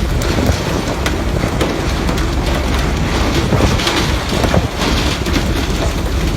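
A steady rushing noise with scattered sharp clicks and ticks.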